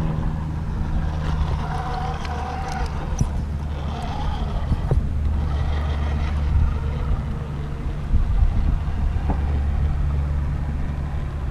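A steady low engine-like hum, with a fainter whine rising and falling in pitch and a few sharp clicks. The whine and clicks fit a radio-controlled rock crawler's brushless motor and tires working up bare rock.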